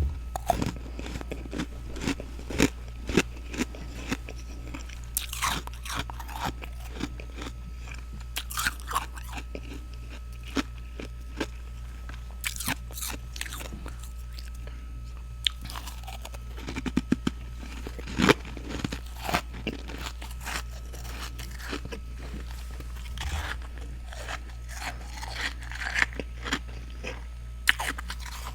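A person biting and chewing freezer frost close to the microphone: irregular, sharp crunches throughout, over a steady low hum.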